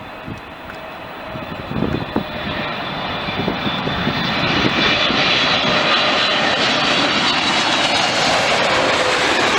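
Jet airliner's engines growing louder over about five seconds as the aircraft nears, then running loud and steady with a high whine over the engine noise.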